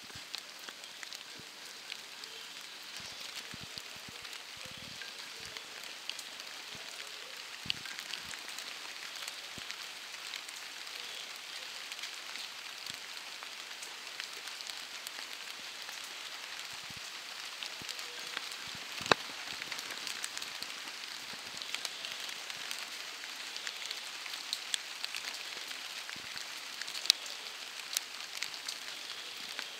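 Steady rain falling: an even hiss dotted with small drop ticks, with a few louder single drips about two-thirds of the way through and near the end.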